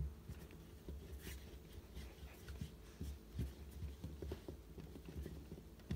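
Play-Doh being rolled into a thin rope under the fingers on a wooden tabletop: faint rubbing with soft, repeated low thuds and small clicks.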